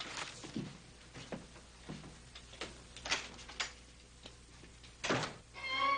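Footsteps walking away across a room, a sharp step about every half second, then a door shutting with a louder knock about five seconds in. A sad string music cue comes in just at the end.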